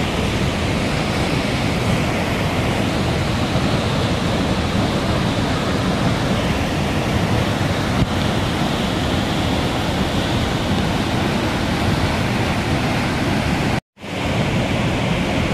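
Steady rush of a waterfall in flood, heavy water pouring over rocks. The sound cuts out for a split second near the end and comes straight back.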